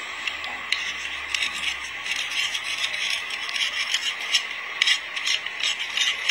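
Irregular scraping and rattling: a run of small, uneven clicks over a steady hiss, sparse at first and growing busier after about a second.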